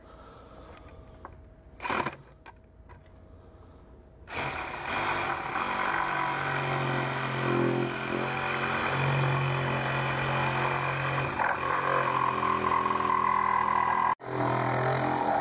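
Cordless reciprocating saw running and cutting through a corrugated plastic riser pipe, starting about four seconds in and going steadily, with a momentary break near the end. A short knock comes about two seconds in, before the saw starts.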